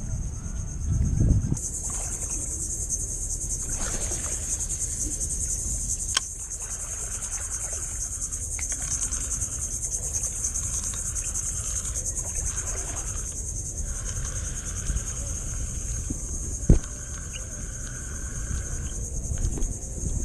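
Insects chirring in a steady high-pitched chorus that sets in about a second and a half in, over a low rumble, with a couple of sharp knocks.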